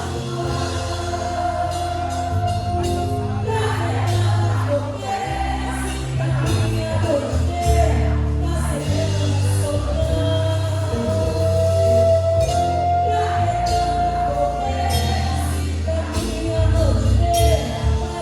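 Music with singing: long held melody notes over a steady bass line.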